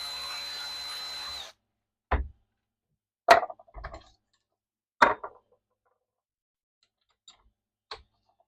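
Power drill running, then stopping about a second and a half in, followed by a handful of separate metal knocks and clanks of tools and parts being set down and handled.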